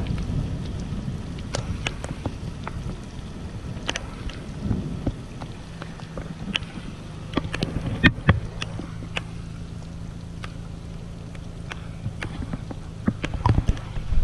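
Heavy rain falling on a wet road, with many scattered sharp taps of drops striking close by, over the steady low hum of a vehicle engine running.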